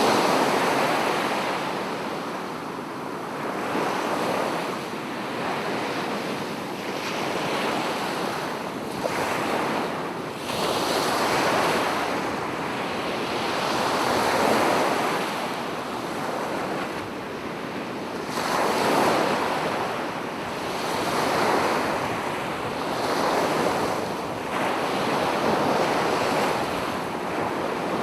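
Ocean surf washing onto a sandy beach: a continuous rush of water that swells and falls back as each wave comes in, every two to four seconds.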